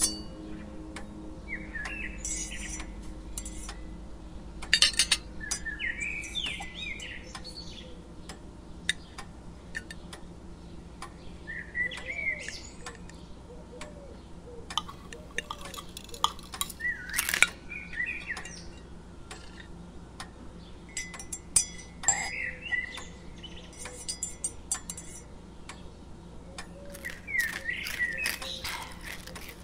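Clinks and knocks of cutlery, plates and glasses, with short high chirps in scattered clusters and a faint steady hum underneath.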